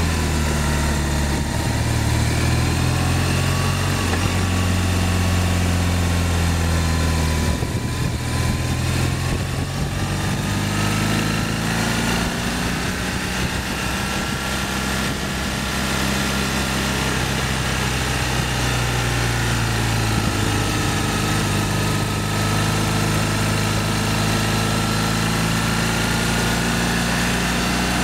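BMW R1200ST motorcycle's flat-twin engine running under way, its note rising and falling with the throttle. It dips briefly about a quarter of the way in, then climbs again. Steady wind rush runs under it.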